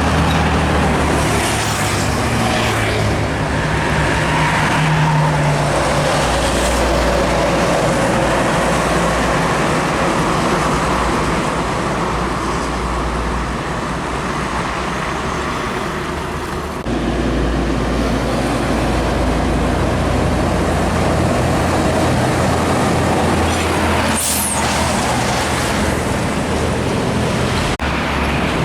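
Heavy trucks driving past on a busy road: diesel engines running with steady traffic noise, the engine sound shifting abruptly about two-thirds of the way through. A brief high squeal sounds near the end.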